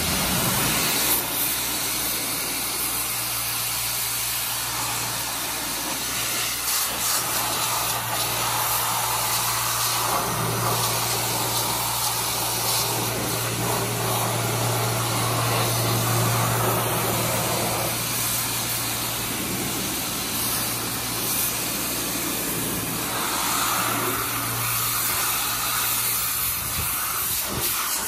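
Pressure washer spraying a high-pressure jet of water onto a jet ski's fibreglass hull and seat: a steady hiss of spray over a steady low hum. The hum drops away near the end.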